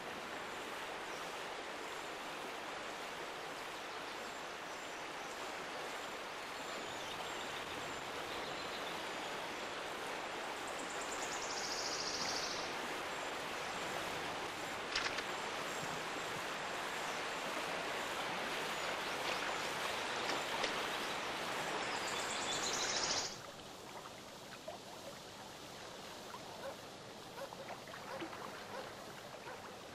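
Steady outdoor ambient rushing noise with a faint high chirp or two, dropping abruptly to a quieter background about three-quarters of the way through.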